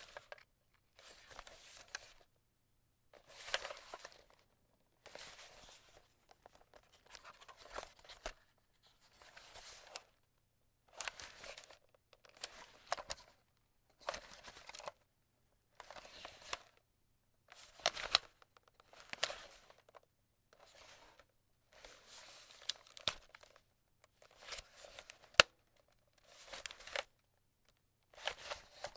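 A photo camera being handled: a series of short rustling, scraping touches on the camera body, each a second or two long with brief pauses between. Some touches carry a sharp click, the loudest about 25 seconds in.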